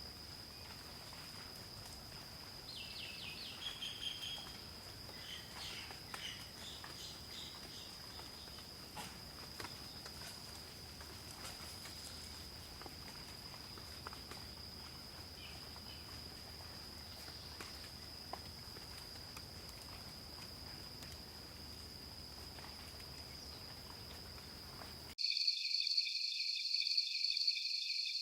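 Night forest ambience: a steady high-pitched insect drone, with a few short chirps about three to four seconds in. About 25 seconds in it cuts abruptly to a louder, pulsing insect chorus.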